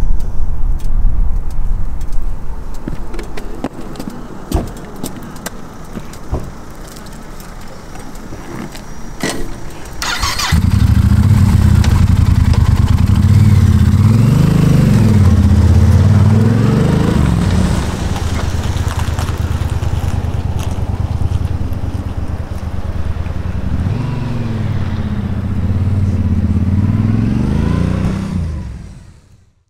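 Yamaha Ténéré 1200 parallel-twin engine starting about ten seconds in after some scattered clicks and knocks, then revving as the motorcycle pulls away. Its note rises and falls several times and fades out near the end.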